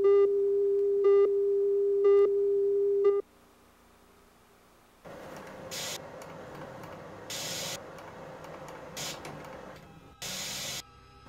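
A steady electronic test tone behind a television station card, with a brief louder pulse about once a second, cutting off about three seconds in. After a short pause, analog TV static hiss, with several louder bursts of hiss as the set is switched between empty channels.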